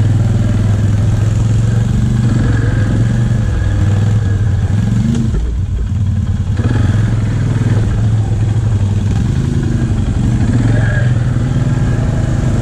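ATV engine running steadily under way, easing off briefly about halfway through and then pulling again.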